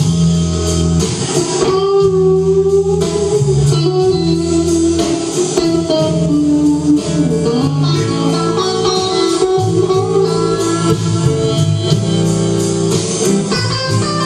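A live band playing a bluesy instrumental passage, with an electric guitar lead bending notes over bass and drums and a steady cymbal beat.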